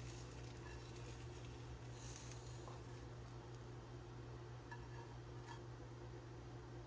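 Quiet room tone: a steady low hum, a few faint light clicks, and a brief hiss about two seconds in.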